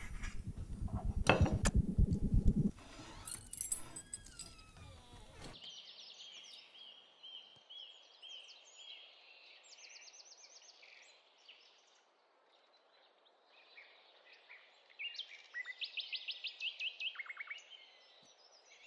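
Small songbirds chirping, with fast repeated trills about halfway through and again near the end, over a faint steady outdoor hiss. For the first few seconds, loud knocks and clatter come before the birds.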